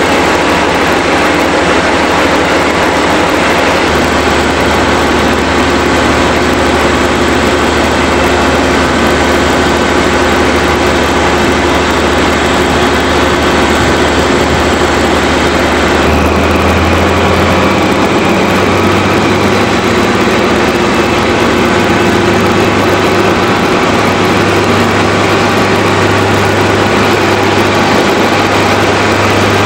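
Diesel engine of an HST (Class 43) power car running steadily at low speed. Its low hum steps up in pitch about four seconds in and again near the middle.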